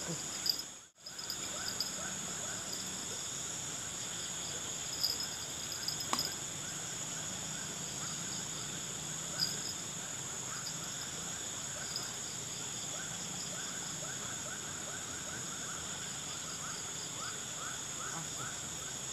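Evening chorus of crickets and other insects: steady high-pitched trills with pulsing chirps over them, and a run of short, quickly repeated calls lower down, typical of frogs. The sound cuts out briefly about a second in.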